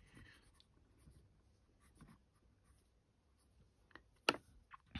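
Faint scratching and light tapping from hands handling the model locomotive chassis and parts on the workbench, with one sharp click a little after four seconds in.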